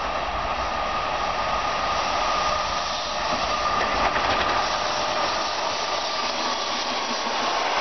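ЭП2К electric passenger locomotive and its coaches running past on the rails: a steady rush of wheel and running noise with a high whine that falls slightly in pitch, and a faint click about four seconds in as the locomotive goes by.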